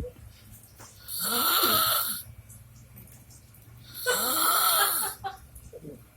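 A person snoring with a shrill, tinny note: two long snores about three seconds apart, each lasting about a second, with quiet between them.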